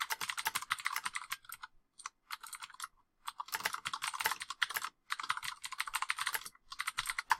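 Fast typing on a computer keyboard, rapid runs of keystrokes broken by a lull of a few scattered key presses about two seconds in.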